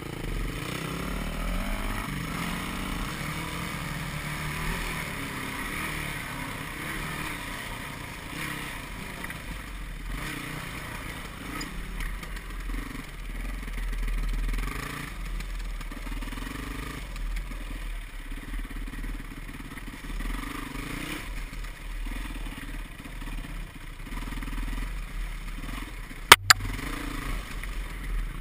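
Yamaha WR450F dirt bike's single-cylinder four-stroke engine running as it is ridden along a rocky trail, revving up and down with the throttle. A single sharp clack near the end is the loudest sound.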